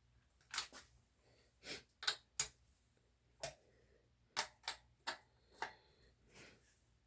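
Irregular sharp clicks and knocks, about a dozen of them, from a wrench working the rear axle nuts of a kid's bike as the wheel is centred and tightened.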